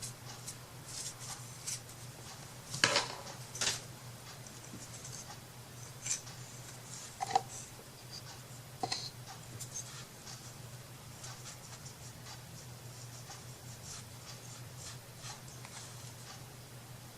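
Light clicks, taps and rustles of small craft pieces being handled and pressed into place, over a steady low hum. The two loudest clicks come about three and four seconds in.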